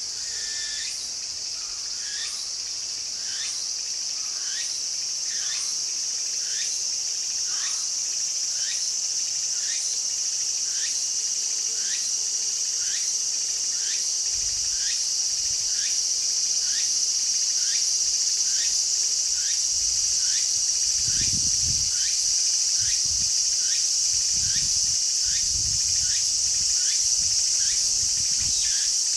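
Tsukutsuku-boshi cicada (Meimuna opalifera) singing: a continuous high buzz with a short rising phrase repeated about once a second, growing louder.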